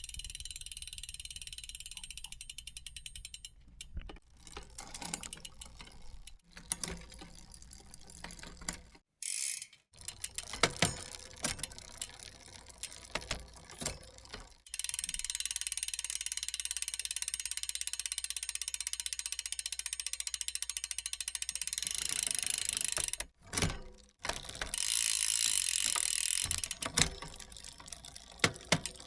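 A run of separate mechanical sound effects split by brief silences: a fast ratcheting click train, then scattered clicks and knocks, then a steady high whirr for several seconds, then more clicking.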